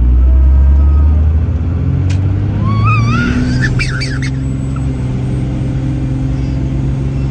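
12-valve Cummins diesel droning in the truck cab while driving, loudest in the first second and a half, after which its note steps up and holds steady. About three seconds in, a toddler lets out a high, wavering squeal.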